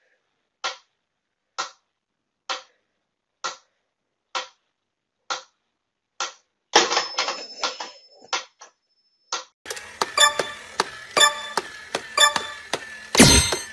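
Mechanical pyramid metronome ticking steadily, about one tick a second. Near the end it gives way to a faster run of clicks with beeping tones from a battery-powered crawling toy soldier, and a loud bang just before the end.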